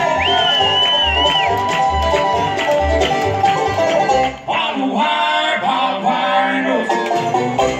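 Live bluegrass band playing: banjo, acoustic guitars and mandolin over a steady bass beat. About four seconds in, the bass beat drops out and the music changes texture.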